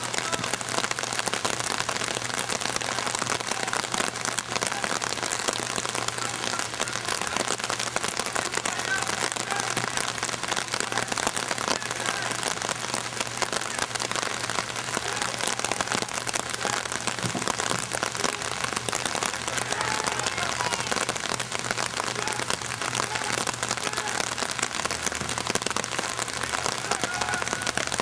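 Steady rain falling, an even dense hiss of drops.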